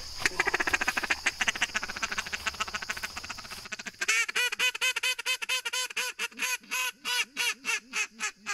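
Weekend Warrior duck call blown by hand: a fast rattling chatter, then from about halfway a string of about a dozen evenly spaced hen-mallard quacks that stop abruptly.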